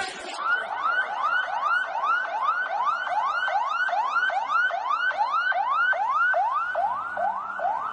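Ambulance siren sounding a fast yelp: a rising sweep of pitch that repeats about two and a half times a second.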